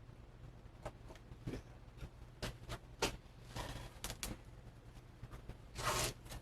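Scattered light knocks, clicks and scrapes as a sand-casting flask is handled and opened to reveal freshly poured zinc castings, with a brief rush of scraping noise near the end. A steady low hum runs underneath.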